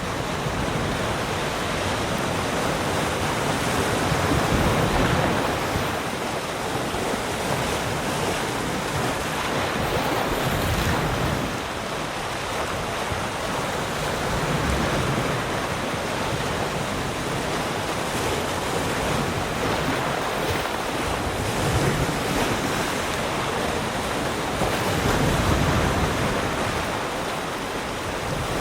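Sea surf: waves breaking and washing on the shore in a continuous rush, swelling louder every several seconds as each wave comes in, with some wind on the microphone.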